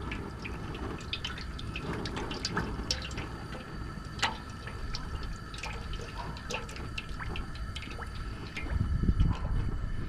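Vegetable oil poured in a stream from a plastic jug into a large aluminum fry pot, with many small drips and splashes, louder near the end.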